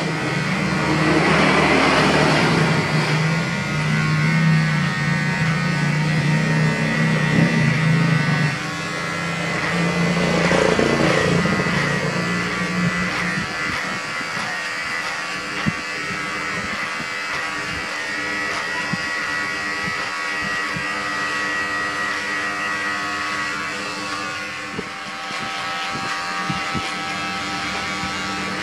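Electric hair clipper buzzing steadily as it cuts short hair over a comb.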